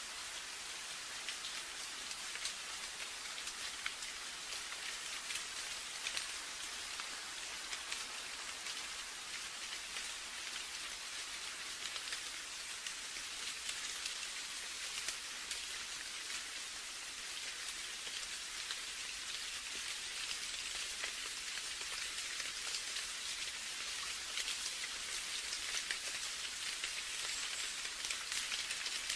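Steady rain falling: an even hiss thick with many small, irregular drop ticks, unchanging throughout.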